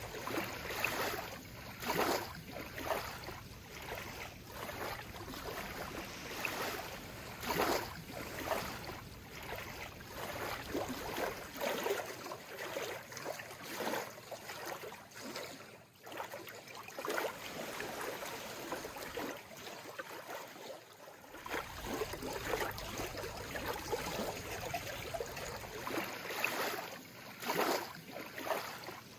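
Calm seawater lapping, with small wavelets slapping and splashing at an irregular pace.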